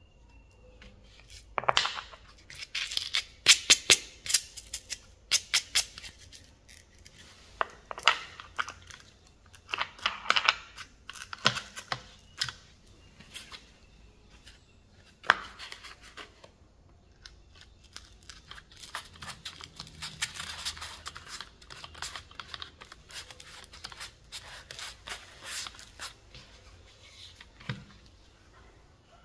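Sanding pad and sandpaper disc being handled and fitted onto an angle grinder's spindle by hand. A run of sharp clicks through the first dozen seconds, then several seconds of rasping, tearing-like rubbing, and a soft knock near the end.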